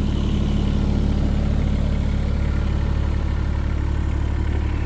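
New Holland E17C mini excavator's engine idling steadily.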